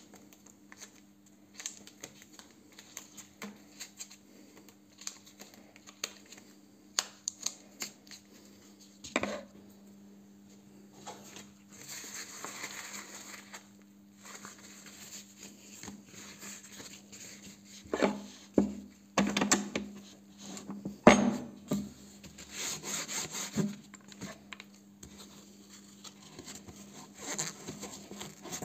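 Hands handling and folding denim cloth wraps and other wrapping material on a tabletop: rubbing and rustling with scattered knocks and taps, one knock much louder about three quarters of the way through. A faint steady low hum runs underneath.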